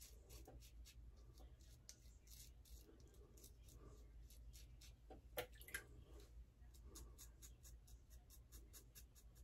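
Faint short scraping strokes of a 3D-printed double-edge safety razor cutting lathered stubble, about three strokes a second, with two slightly louder strokes a little past the middle.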